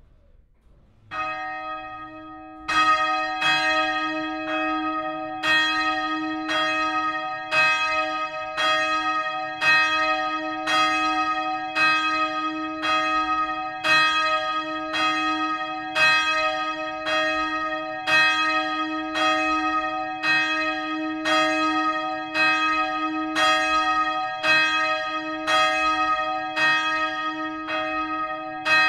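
Swinging church bells start to ring: a first strike about a second in, then the peal builds into loud, regular strokes a little under a second apart, each one ringing on into the next.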